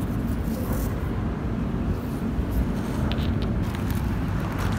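Steady low outdoor rumble on the microphone, with a few light crunches of shingle underfoot about three seconds in.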